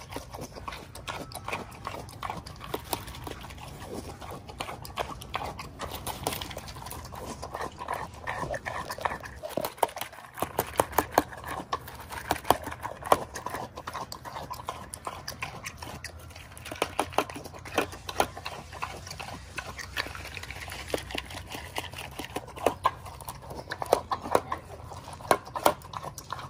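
Pot-bellied pig eating cereal from a stainless steel bowl: continuous crunching and chewing, with many sharp, irregular clicks.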